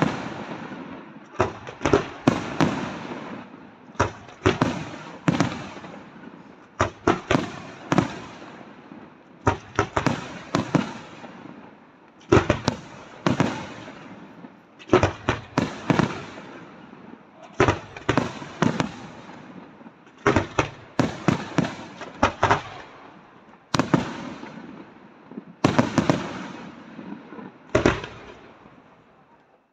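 Aerial fireworks shells bursting: clusters of two to four sharp bangs about every two to three seconds, each group dying away in an echoing rumble before the next.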